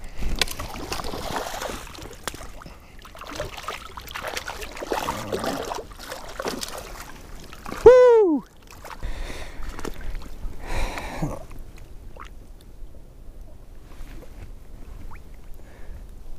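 Water splashing and sloshing as a pike thrashes in a landing net at the water's edge, with a single loud, short tone that rises and falls about eight seconds in. Another burst of splashing comes around eleven seconds, then it goes much quieter.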